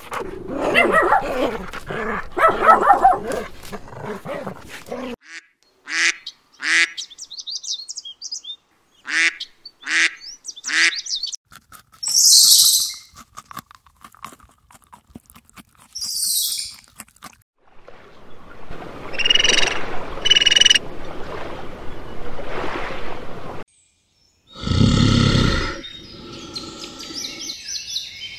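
Dogs growling and barking at rough play for the first few seconds. A string of varied short animal calls and hissing bursts follows.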